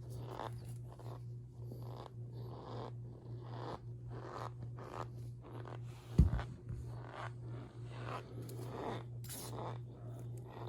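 Powder being squeezed and pressed by hand, giving repeated soft squeaky crunches, roughly two a second, over a steady low hum. One louder thump comes a little past the middle.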